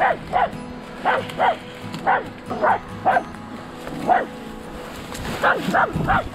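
Hunting dog giving ståndskall, the stand bark: about a dozen sharp barks, often in pairs, with a short pause partway through. This bark is the sign that the dog has found game and is holding it in one place.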